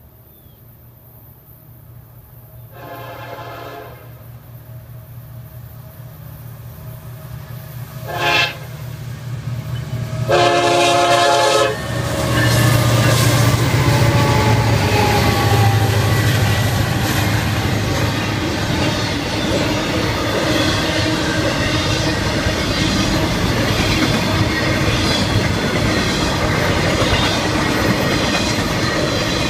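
Florida East Coast diesel freight train approaching a grade crossing: the locomotives' engine rumble grows louder while the horn sounds three times, a long blast, a short one, then another long one. About twelve seconds in the locomotives pass and the intermodal cars roll by with steady wheel clatter.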